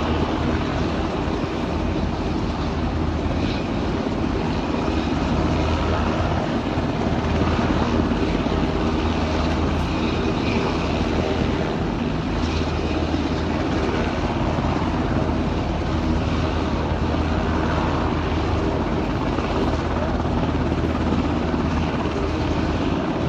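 Aircraft engines running steadily: a constant low drone under an even rushing noise, with no change in pitch.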